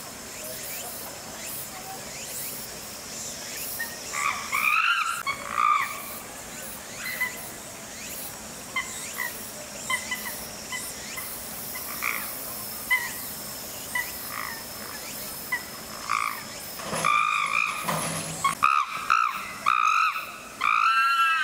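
Chimpanzees calling: a few calls about four seconds in, short scattered calls after that, then a loud run of overlapping calls over the last few seconds.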